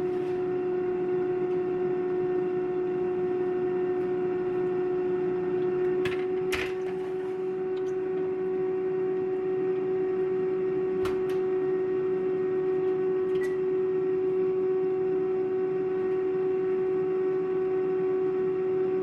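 Countertop air fryer running: a steady electric hum with one constant pitched tone over the fan's rushing noise. A couple of sharp knocks about six seconds in, and lighter clicks around eleven and thirteen seconds.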